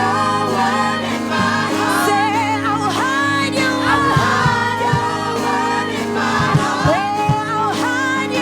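Gospel worship music: a choir and lead voices singing over sustained keyboard chords and a band.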